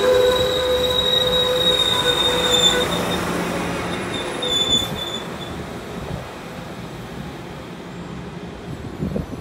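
Amtrak Pacific Surfliner passenger train with bilevel cars rolling slowly past and braking to a station stop. A high wheel-and-brake squeal fades out about halfway through, leaving a low rolling rumble that grows steadily quieter as the train comes to a halt.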